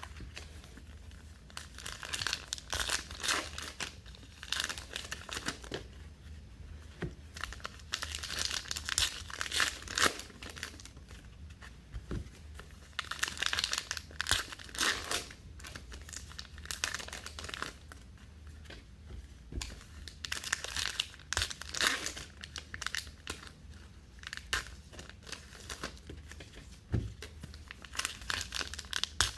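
Trading card pack wrappers being torn open and crinkled by hand, in irregular bouts of crackling every few seconds.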